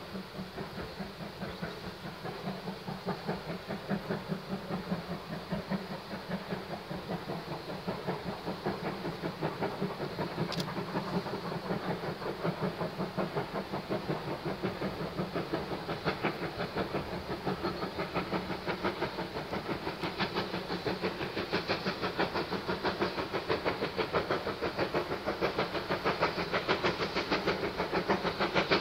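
Steam locomotive exhaust beats, a rapid, regular chuffing that grows steadily louder as the engine approaches.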